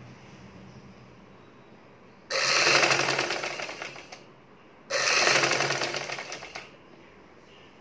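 Vidya sewing machine stitching fabric in two runs of about two seconds each. Each run starts suddenly and dies away as the machine slows, with a short pause between them.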